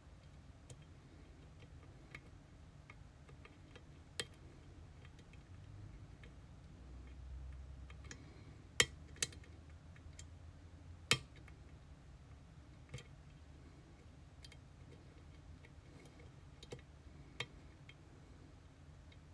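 Scattered small metallic clicks and taps from an EVVA Dual dimple lock and picking tools being handled, with three sharper, louder clicks around the middle.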